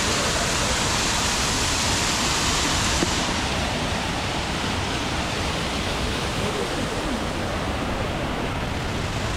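Waterfall rushing in a steady, even roar; its hiss softens a little about three seconds in.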